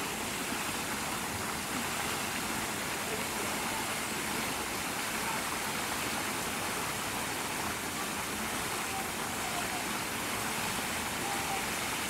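A steady, even hiss of water.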